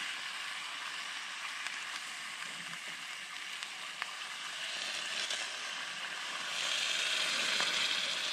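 Steady hiss of a campfire with a small metal pot of water on the boil, with a few sharp clicks. The hiss grows louder about six and a half seconds in as the hot water is poured into a mug.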